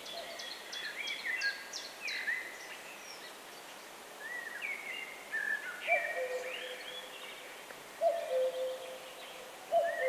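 Wild birds singing: quick, varied high-pitched song phrases, joined in the second half by a low two-note hooting call, a short higher note falling to a longer lower one, repeated three times.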